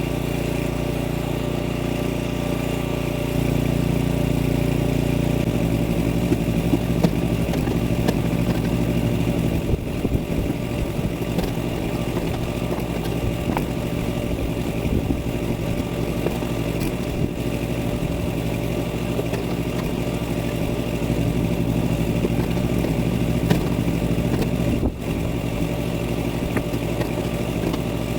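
Small engine running steadily at a constant speed, its note shifting slightly a few seconds in, with a few short sharp knocks over it.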